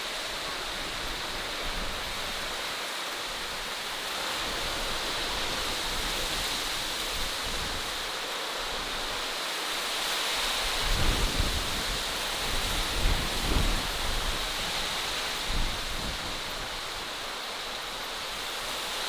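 Outdoor natural ambience: a steady rushing hiss, with irregular low rumbles about eleven to fourteen seconds in.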